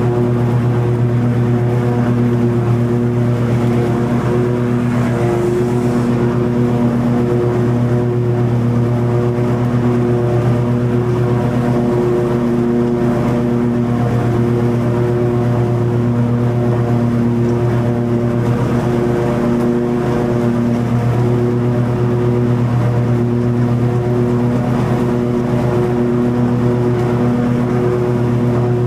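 Toro TimeCutter 50-inch zero-turn mower running steadily, its engine and spinning deck blades humming evenly while cutting long grass.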